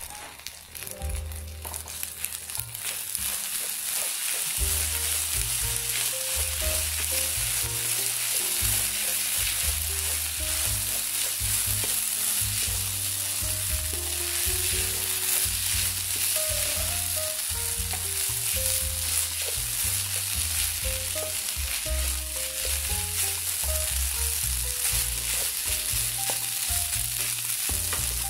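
Kimchi fried rice sizzling in a nonstick frying pan as it is stirred and turned with a wooden spoon. The sizzle builds over the first few seconds and then stays steady, with soft background music underneath.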